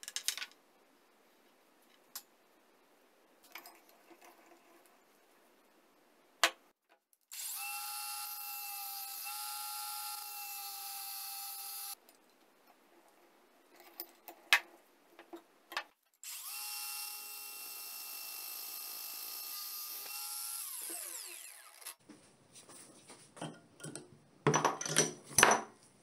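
A handheld power tool's motor runs twice at steady speed for about four to five seconds each time, the second run winding down as it stops. Between and after the runs come sharp clicks and knocks of metal being handled and clamped, with a quick cluster of loud metallic clicks near the end.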